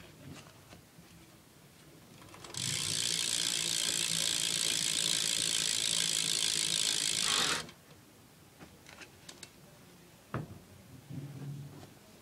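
Rear cassette hub of a 2011 Fit BMX bike spinning freely, its pawls ratcheting in a fast, continuous clicking for about five seconds. It starts about two and a half seconds in and stops suddenly.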